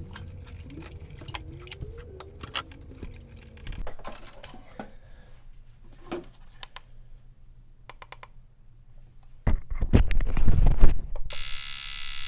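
Fuel injector from a 2000 Ford Ranger's 2.5-litre four-cylinder being pulsed by an injector tester: faint irregular clicks and handling rattles, then a louder stretch of knocking about ten seconds in. Near the end a loud electric buzz starts. The injector is failing and nearly dead.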